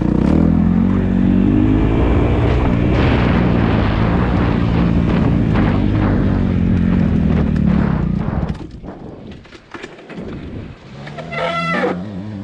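Dirt bike engine running loud and fairly steady, then cutting off suddenly about eight seconds in. A few clicks follow, and a short high-pitched call sounds near the end.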